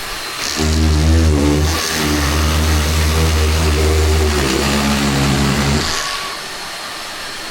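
Makita drywall cutter running for about five seconds, a loud low hum whose pitch wavers as it works, then stopping about six seconds in. Under it runs the steady hiss of a dust extractor.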